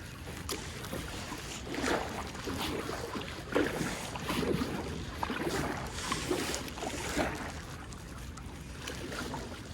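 Kayak paddle strokes splashing and dipping in shallow river water, an uneven stroke about every second.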